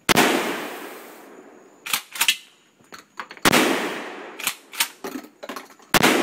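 Three 12-gauge shotgun blasts, the second about three and a half seconds after the first and the third two and a half seconds later, each dying away over a second or more. A few small clicks and knocks come between the shots.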